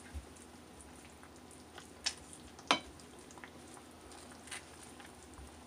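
Chicken stew in tomato sauce slowly boiling in a pot, a faint steady simmer, with a spatula stirring and clicking sharply against the pot twice, about two and nearly three seconds in.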